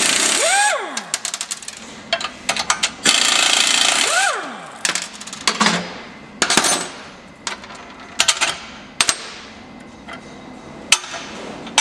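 Air impact wrench hammering out bolts in two bursts, the first ending about half a second in and the second lasting about a second. After each burst comes a falling whine as the tool spins down. After that, scattered metal clicks and knocks as the loose bolts and hardware are handled and set down.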